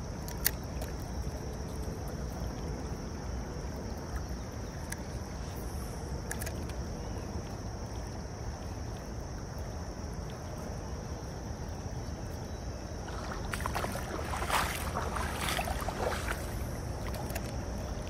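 Shallow creek water running steadily, with low wind rumble on the microphone. A sharp click about half a second in, and a louder rough burst of noise from about thirteen to seventeen seconds in.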